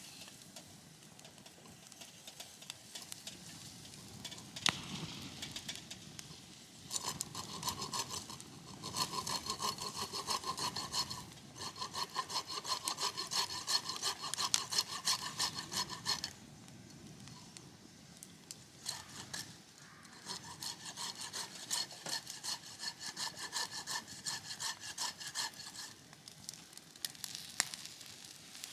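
Hand saw cutting wood, likely firewood, in three bouts of rapid back-and-forth strokes with a ringing blade tone and short pauses between bouts.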